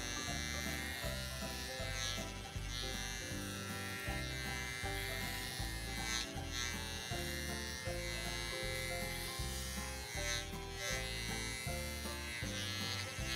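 Electric hair clippers buzzing steadily as they cut short hair, with background music that has a steady beat playing along.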